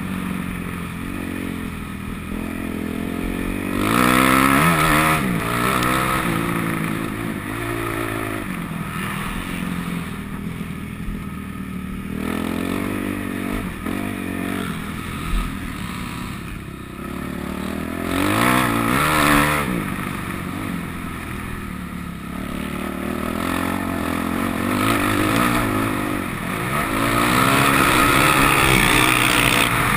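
Motocross bike engine heard from onboard, revving hard and easing off over and over as the rider works the throttle around the track, its pitch climbing and dropping, with louder surges about four, eighteen and twenty-seven seconds in.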